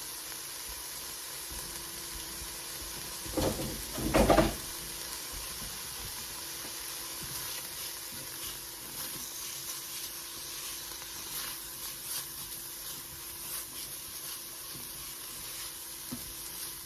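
Onion, garlic and celery sizzling steadily in olive oil in a soup pot, with a couple of brief louder clatters about three to four seconds in.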